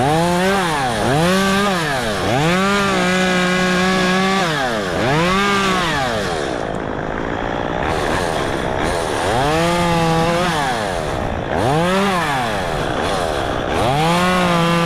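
Small gas chainsaw revved up and dropped back to idle about seven times. It holds at full throttle for a second or two near the start and again near the end, as it cuts through branches.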